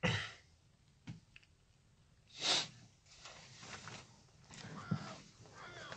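Close-miked breaths and small handling noises at a studio microphone: a sharp breath at the start, a click about a second in, another noisy breath about two and a half seconds in, then faint shuffling.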